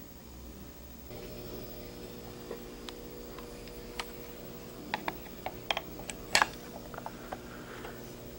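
Scattered small clicks and taps of a phoroptor's metal parts and small hand tools being handled as its screws and fittings are worked, thickest in the second half, over a faint steady hum that starts about a second in.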